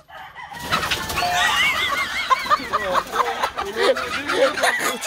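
A chicken squawking and clucking in alarm as it is caught by hand: a rapid run of repeated sharp calls starting about half a second in.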